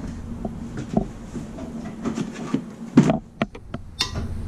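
Plastic glove box on a CFMOTO UForce 1000 UTV dashboard being handled and unlatched: scattered knocks, a firmer knock about three seconds in, then a quick run of sharp latch clicks, over a steady low hum.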